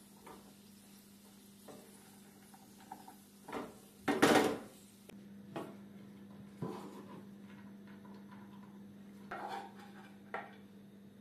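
A wooden spoon stirring and scraping dry-roasted lentils and chickpeas in a nonstick frying pan, with scattered knocks and rattles of utensil on pan; the loudest is a clatter about four seconds in.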